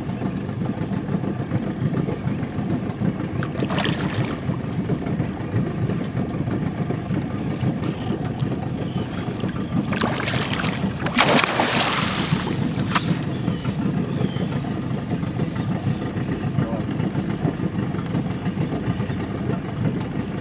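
Large grass carp splashing and thrashing at the water's surface about halfway through, loudest around the middle, with a smaller splash a few seconds earlier. A steady low rumble runs underneath.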